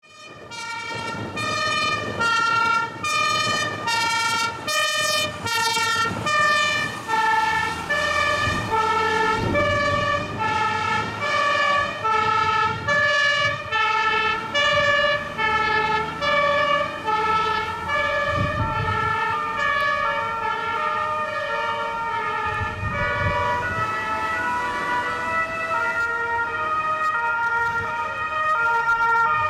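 German emergency vehicles' two-tone sirens (Martinshorn) sounding as fire engines and ambulances respond, a steady alternating high-low call, with more than one horn overlapping. The engine rumble of passing vehicles rises around a third of the way through and again later, and the siren pitch shifts after about 23 s as vehicles go by.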